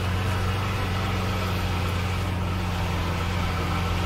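Lamborghini Veneno's 6.5-litre V12 idling steadily with a low, even tone.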